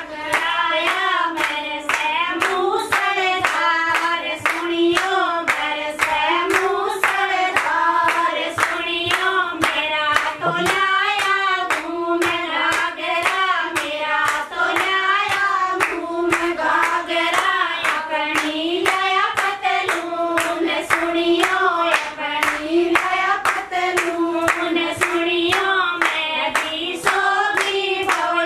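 Women singing a traditional Haryanvi folk song (lokgeet), with hand claps keeping a steady beat under the melody.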